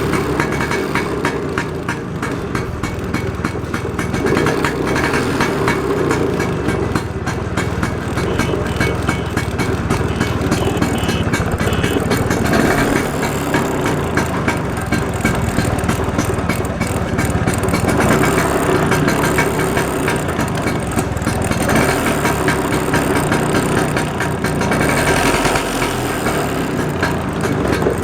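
Classic Vespa scooter's two-stroke engine running steadily at idle.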